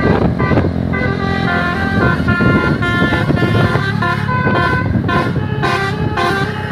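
Indonesian bus telolet horns playing a tune, several horn notes sounding together and stepping from pitch to pitch, over a steady low rumble of vehicle noise.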